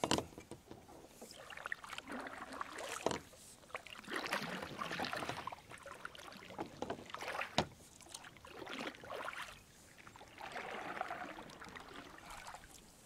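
Double-bladed kayak paddle strokes: the blades dip and pull through the water, splashing and dripping, with a swell of water noise every second or two. A few sharp knocks stand out.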